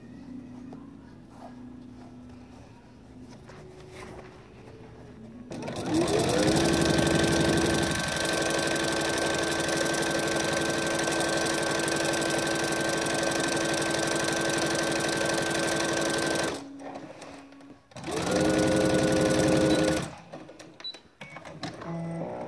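Electric household sewing machine stitching a seam: about five seconds in the motor speeds up with a rising whine, then runs steadily for about ten seconds and stops. After a short pause it runs again for about two seconds.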